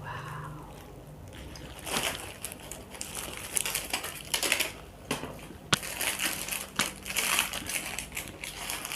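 A parcel's packaging being opened and handled by hand, crinkling and rustling in irregular bursts with a few sharp clicks; it gets busier about two seconds in.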